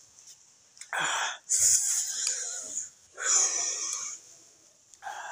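Several loud, hissing breaths through the nose, each about a second long, from a person chewing a mouthful of beans with her mouth closed.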